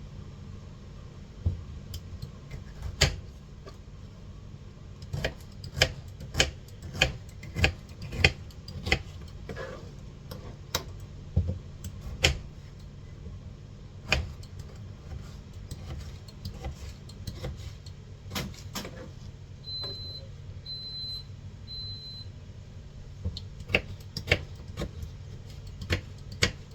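Irregular sharp taps and knocks of a knife cutting fruit on a board, over the steady low hum of a washing machine running. About three-quarters of the way through come three short high beeps.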